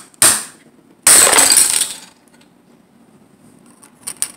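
A Smashers toy egg slammed against a wooden table: a hard knock, then about a second in a loud cracking crash lasting about a second as the shell breaks open. Two small clicks follow near the end.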